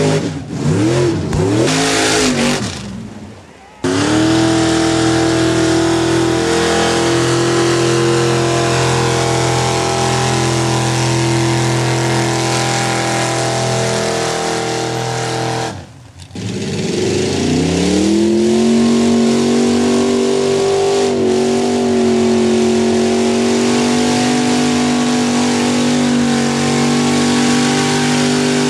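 Mud bog trucks' engines running at wide-open throttle. The revs swing up and down at first, then jump suddenly to a steady high pitch. About halfway through the sound drops off abruptly, then a second engine revs up in a rising sweep and is held at high revs to the end.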